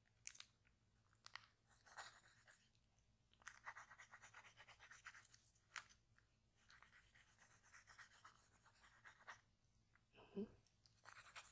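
Faint, soft scratching and rustling of a pencil on a paper notepad while sketching, coming and going in short stretches. A brief hum-like vocal sound comes near the end.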